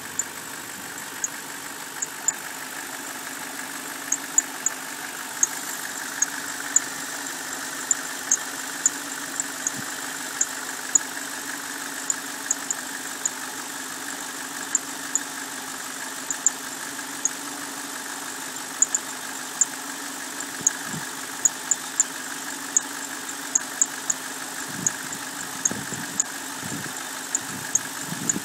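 BMW 545i's 4.4-litre V8 idling rough: a steady hum broken by irregular sharp ticks, about one or two a second, with a few low thumps near the end.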